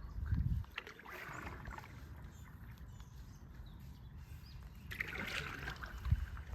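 Canoe being paddled: two paddle strokes swishing through the water, with a low thump near the start and another near the end.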